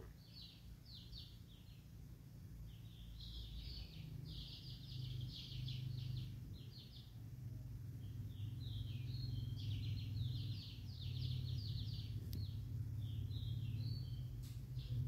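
Bursts of rapid, high-pitched chirping calls, repeated in quick trains, over a steady low hum that grows louder a few seconds in. A couple of faint clicks come near the end.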